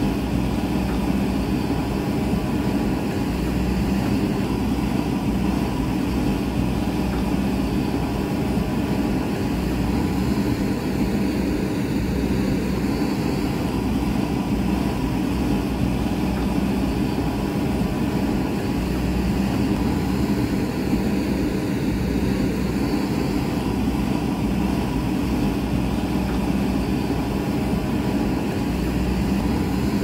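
JCB backhoe loader's diesel engine running steadily under load while the backhoe arm digs soil, a constant engine drone.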